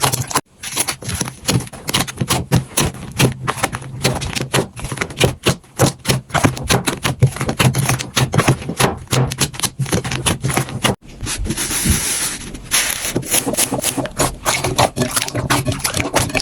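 Slime being squished and poked by hand: a quick, irregular run of wet clicks and crackles. The sound breaks off twice, about half a second in and again near eleven seconds, and the second part opens with a finer, hissing crackle.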